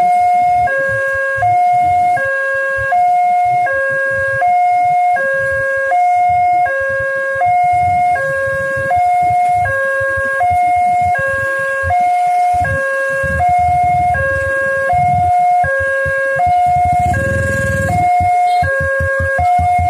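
Railway level-crossing warning alarm sounding: an electronic two-tone signal alternating steadily between a lower and a higher note, each held under a second, one pair about every one and a half seconds. It warns that a train is approaching and the crossing is closing.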